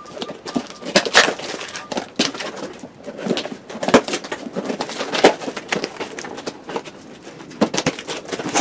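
A cardboard box being opened by hand: irregular scraping and rustling with sharp crackles and clicks as the flaps and packing are pulled apart.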